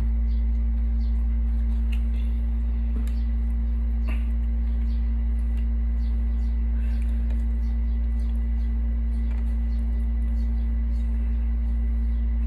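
A steady low hum fills the background, with faint scattered clicks and taps of spoons on plates and a platter as people eat.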